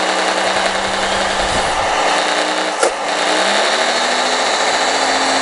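Radio-controlled scale excavator working its boom and bucket: a steady mechanical whine and hiss under a simulated diesel engine note that shifts in pitch a couple of times, with a single click about halfway through.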